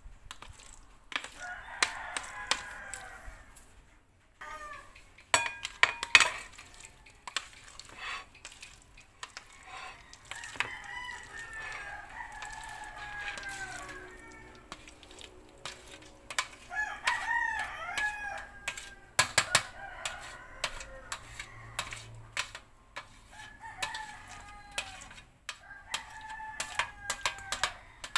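A rooster crowing several times, with clucking between the crows. Sharp clicks and scrapes of a utensil and jelly cubes on a metal tray come in between, the loudest about six seconds in and again near nineteen seconds.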